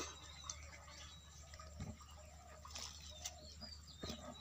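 Faint bird calls: a few short, high chirps, mostly in the second half, over a low steady background hum.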